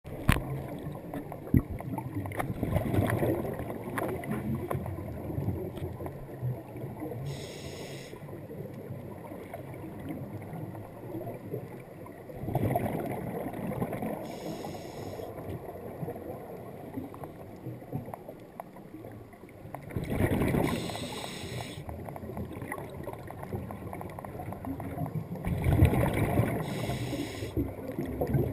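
A scuba diver breathing through a regulator underwater: a surge of bubbling and gurgling comes about every six to seven seconds, with a short hiss between, over a steady low water rumble.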